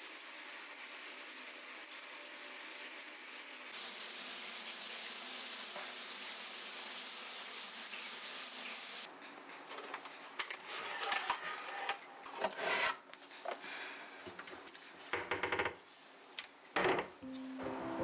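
A steady hiss for about nine seconds, then irregular rubbing and scrubbing strokes by hand, as in scrubbing a surface clean.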